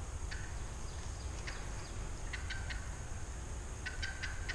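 Wild turkey hen calling with short, sharp clucks and yelps: single notes at first, then a group of three and a quicker run of four or five near the end.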